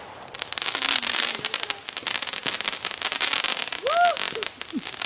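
Júpiter turbo fireworks cake firing: dense, rapid crackling and popping of many small shots.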